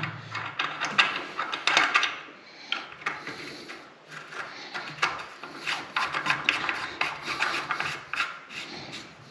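Hands working a brass drain valve on a heating return pipe, the valve used to top up the heating system's pressure: irregular scraping, rubbing and clicking of metal fittings.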